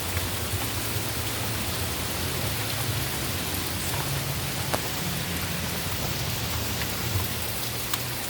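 Heavy tropical-storm rain falling steadily, with a few sharp drop hits standing out.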